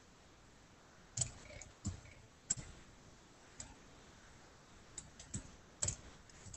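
About seven short, sharp clicks at irregular intervals, from a computer mouse and keyboard being worked while editing a drawing, heard faintly over a video-call connection.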